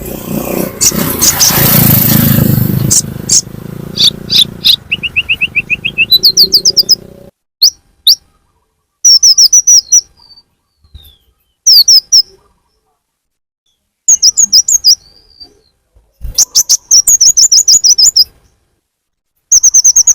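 Konin (kolibri ninja) lure call: repeated bursts of rapid, high-pitched, downward-sweeping chirps. For the first seven seconds they sit over a noisy background, with a lower even run of notes at about five seconds. After that the bursts of a second or two are separated by abrupt silences, like an edited loop.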